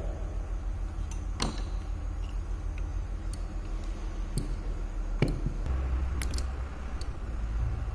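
Scattered sharp metallic clicks and light knocks, about eight of them, the strongest about a second and a half in and again about five seconds in, as the steel parts and screwdriver of a model tractor differential are handled. A steady low rumble runs underneath.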